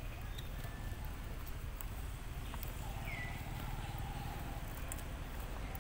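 Outdoor ambience: a steady low rumble with scattered faint clicks, and one brief high chirping call about three seconds in.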